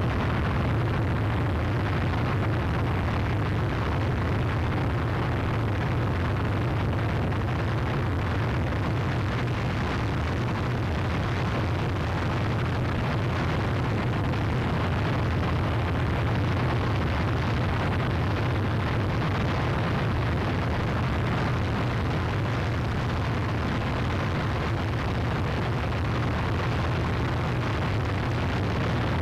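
Harsh noise wall: a dense, unchanging mass of distorted noise, heaviest in a deep low rumble, with no rhythm, pitch or breaks.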